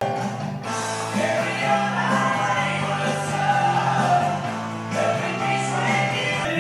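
Rock music with a singing voice, starting abruptly at the outset.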